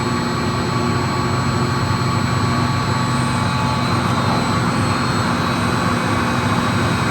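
Steady hum and rushing noise of a running commercial chiller, with a low multi-tone drone underneath.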